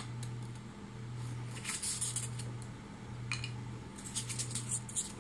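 Styrofoam packing peanuts and a plastic bin liner rustling and squeaking as they are handled, in several short crackly bursts over a steady low hum.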